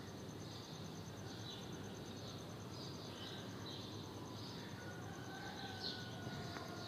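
Faint outdoor ambience: steady background hiss with faint high chirps repeating about twice a second, and a faint thin tone in the last couple of seconds.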